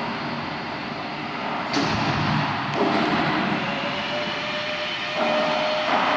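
RX-200L vacuum homogenizer emulsifier mixer running with water in its 200-litre vessel: a steady, loud machine noise from its motors and stirring, with a steady tone coming in near the end.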